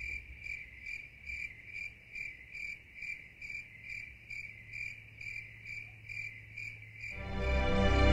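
A cricket chirping steadily on one high note, about two and a half chirps a second. About seven seconds in, music swells up over it and becomes the loudest sound.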